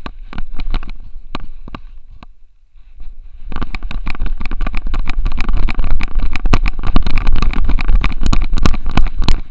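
Xiaomi Yi action camera on a French Bulldog's harness being jolted as the dog runs, giving rough knocking and rattling handling noise over a low rumble. A few separate knocks at first, then about a second of near lull, then a dense, fast clatter from about three and a half seconds in.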